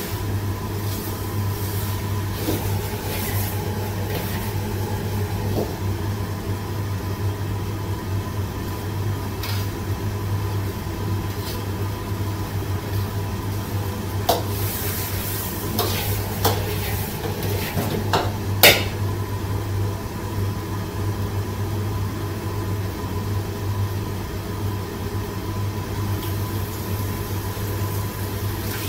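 Shredded vegetables sizzling in chili oil in a wok, stirred with a metal ladle that knocks against the pan a few times, over a steady low hum.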